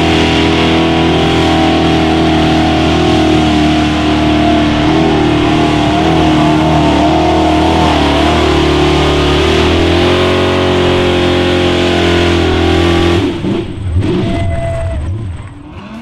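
Mud bog truck's engine running hard at high revs as a square-body Chevrolet pickup churns through a mud pit, its pitch holding high and steady with small wavers. It cuts off abruptly about thirteen seconds in, leaving a shorter jumble of quieter sounds.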